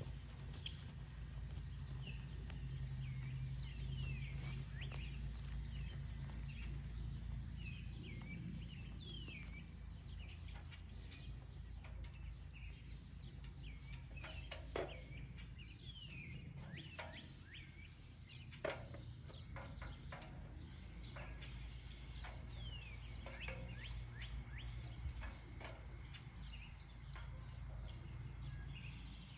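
Small birds chirping in quick, repeated pitch-sliding notes, over a steady low rumble, with a few sharp clicks.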